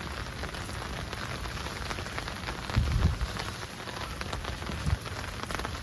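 Steady rain falling on a garden, with many separate drop hits over an even hiss. A brief low rumble comes about halfway through.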